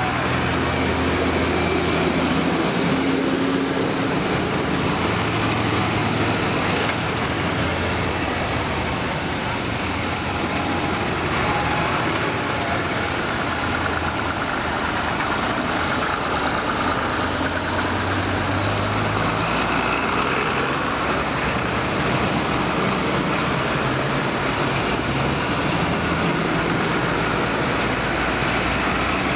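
A procession of farm tractors driving past one after another at low speed. Their diesel engines run steadily, from large modern New Holland and John Deere tractors to older red Massey Ferguson and International tractors, and the engine note shifts every few seconds as each one comes by.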